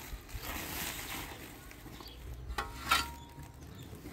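A woven sack rustling as it is handled, then a metal shovel scraping into a pile of sand and gravel, with two short, sharp scrapes about two and a half and three seconds in.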